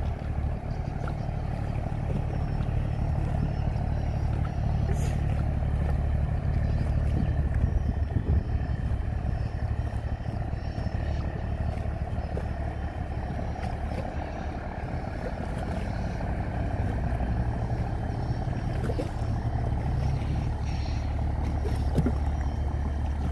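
Diesel engine of a wooden fishing trawler under way, a steady deep drone.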